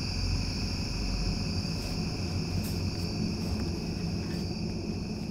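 Crickets chirping in a steady, continuous chorus, with a low rumble underneath.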